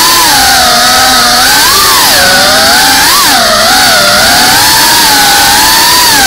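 FPV quadcopter's brushless motors and propellers whining loudly, heard from the onboard camera. The whine's pitch rises and falls several times as the throttle changes.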